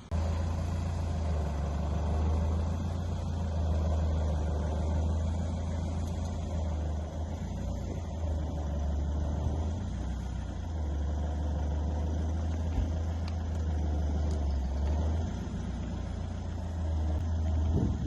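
Iveco Daily 4x4 expedition truck's engine running at a low, steady pace, a deep drone as it crawls over the rocky riverbed. A single sharp knock is heard about two-thirds of the way through.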